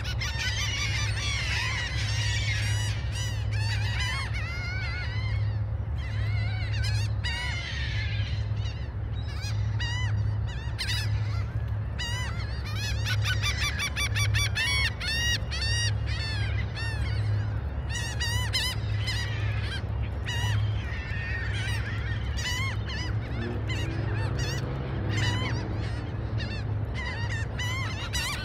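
A flock of gulls calling constantly, many high, arching calls overlapping one another, over a steady low rumble.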